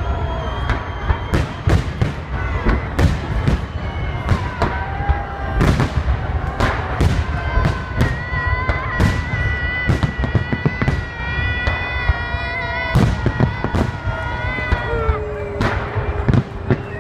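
Fireworks salute going off: a rapid, irregular series of sharp bangs. Pitched, wavering tones rise and hold over the bangs, one held high from about eight to twelve seconds in and a lower one near the end.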